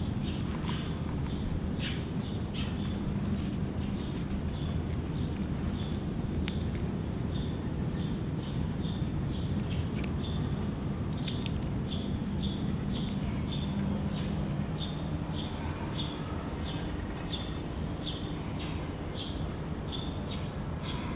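Repeated short high chirps, about two a second, over a steady low rumble.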